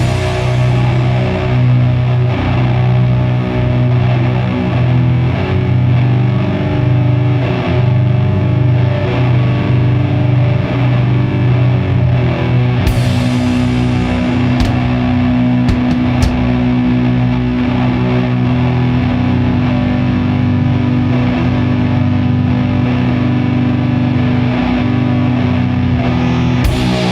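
Doom metal instrumental: heavily distorted electric guitars and bass holding long, slow, low notes, with a crash about halfway through and another near the end.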